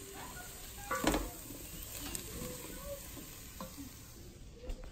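Wooden spoon stirring diced vegetables and peas in a stainless steel pot, over a light sizzle from a butter-and-flour roux cooking on low heat. A louder knock of the spoon against the pot comes about a second in, and a smaller one later.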